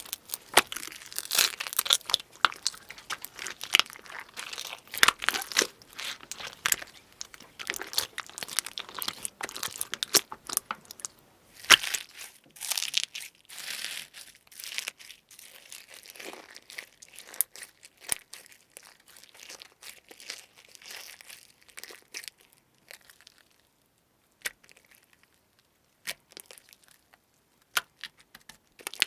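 Crunchy slime being squeezed and pulled apart by hand, with dense crackling, crunching and tearing that thins out to a few scattered clicks near the end.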